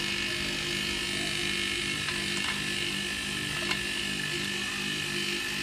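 Homemade air compressor built from a 12,000 BTU air-conditioner compressor, running steadily as it pumps up its air tank: an even motor hum with a faint click partway through.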